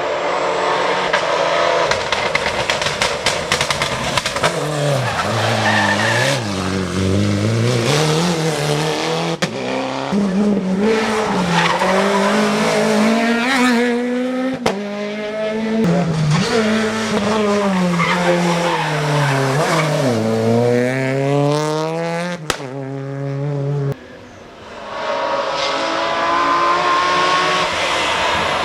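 Rally car engines revving hard and rising and falling in pitch through gear changes and braking, with tyres squealing, as cars drive a special stage. There is a sharp crack twice, and a short lull about 24 seconds in before another car comes through.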